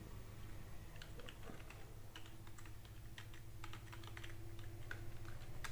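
Computer keyboard keys tapped in a faint, irregular run as an email address is typed.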